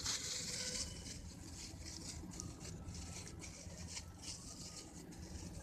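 Thin plastic bag crinkling and rustling as hands wrap and squeeze it around a ball of wet soil on a branch for an air layer. It is loudest in the first second, then goes on as faint scattered crackles.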